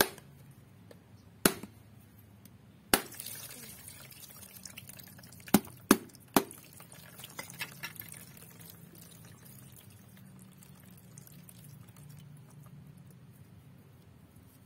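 A large knife chopping into a husked kopyor coconut's shell: six sharp blows in the first six and a half seconds, scoring it around without splitting it in two so that the coconut water can drain. Between and after the blows the coconut water splashes and drips out into a plastic tub.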